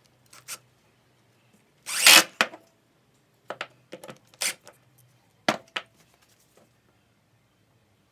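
Workshop handling noises: a series of sharp knocks and clinks from tools and parts being handled, with a short scraping rub about two seconds in.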